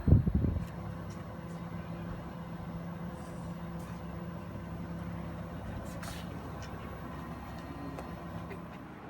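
Mitsubishi PK-RP80KA15 packaged air conditioner running: a steady mechanical hum with a few faint clicks, its low tone dropping away near the end.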